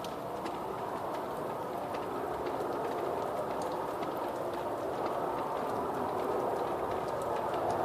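A steady, strange roaring sound in the sky, a broad rushing rumble that grows slightly louder over the seconds, with faint scattered ticks; its source is unidentified.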